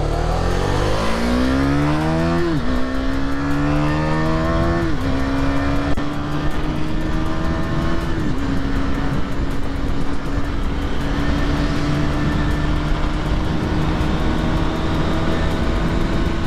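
Single-cylinder engine of a KTM Duke motorcycle pulling away and accelerating up through the gears. The note rises and drops sharply at three shifts, about 3, 5 and 8 seconds in, then settles into a steady cruise with a slowly climbing pitch.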